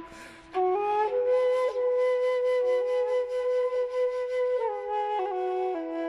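Instrumental background music led by a flute, playing a slow melody of long held notes that step up and down. A held note breaks off at the start, and a new phrase comes in about half a second later.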